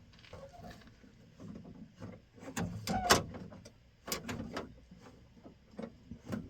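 Sharp clicks and knocks of metal parts and hardware being handled and fitted inside a pickup truck's door, the loudest a sharp click about three seconds in, with a few more knocks scattered after it.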